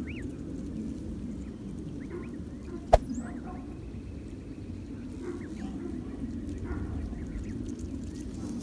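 Canada goose goslings peeping: scattered short, high chirps over a steady low background noise, with one sharp click about three seconds in.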